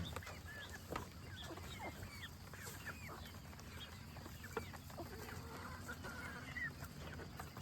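Chickens clucking, with many short, high chirping calls scattered throughout over a faint steady low hum.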